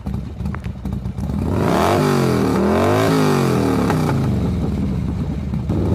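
Cartoon motorbike engine sound effect revving, its pitch swinging up and down in the middle and then holding steady.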